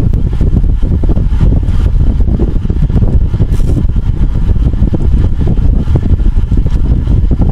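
Wind buffeting the microphone of a bicycle-mounted onboard camera at racing speed: a loud, steady, low rumble with a fluttering texture.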